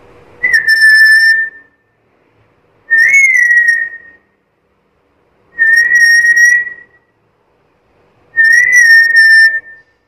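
Black-capped lory whistling four times: each call is one clear, steady whistle about a second long with a slight rise at the start, the calls a couple of seconds apart.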